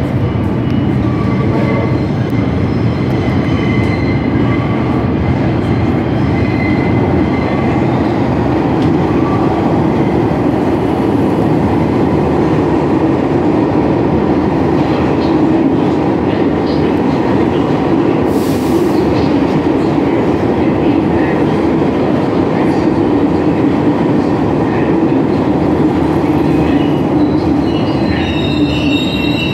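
R62 subway train running into the station past the platform, a loud steady rumble of steel wheels on the rails. A high-pitched wheel squeal sets in near the end.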